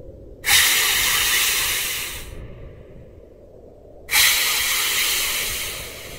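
Two long hisses, each starting suddenly and fading away over about two seconds, with a pause of about two seconds between them.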